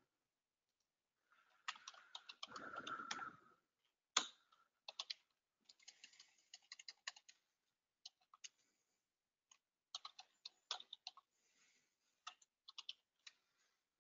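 Faint computer-keyboard typing: quick runs of keystrokes with a few louder single clicks, and a brief muffled noise about two to three seconds in.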